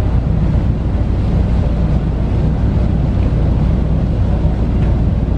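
Wind buffeting the microphone, a loud steady low rumble, with sea and ship noise beneath it.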